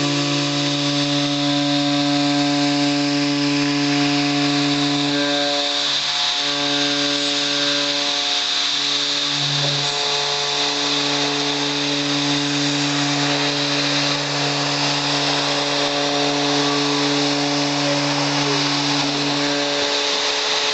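Spindle of a three-axis CNC drilling-milling machine cutting aluminium profile: a steady multi-tone whine over a cutting hiss, with a brief change in pitch between about 6 and 10 seconds in.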